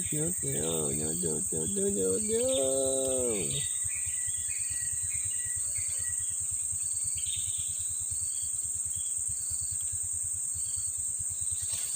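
Steady high-pitched insect drone with short bird chirps repeating throughout. A drawn-out human voice is heard in the first three and a half seconds.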